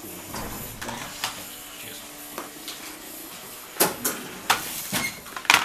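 A series of sharp clicks and knocks, a handful of them close together in the last two seconds, over a steady hiss, with a brief low hum earlier on.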